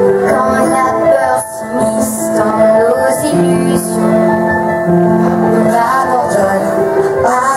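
Musical-theatre song played loud through the hall's speakers: backing music with long held notes and singing over it, a woman's voice most prominent.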